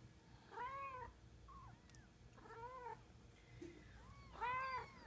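Tuxedo cat meowing three times, each call rising and then falling in pitch, with fainter short mews in between.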